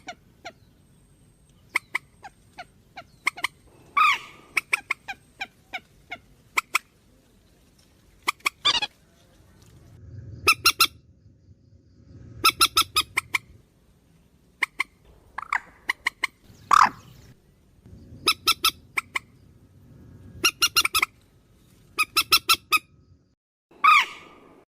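Purple swamphen calls played as a bird-trapping lure: irregular bursts of short, sharp notes repeated in quick runs, broken by a few longer squawks.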